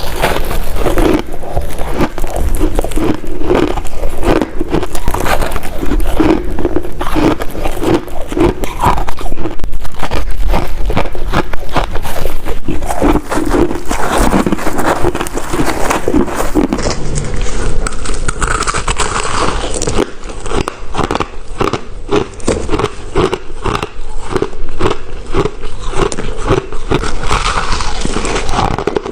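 Ice being bitten and chewed close to the microphone: a dense run of loud, sharp crunches and crackles.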